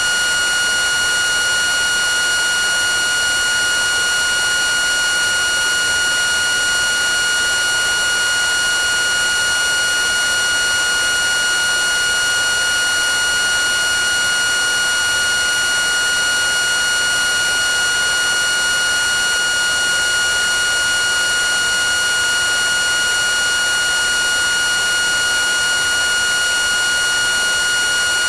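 VHS tape playback noise: a steady hiss with a constant high whine over it.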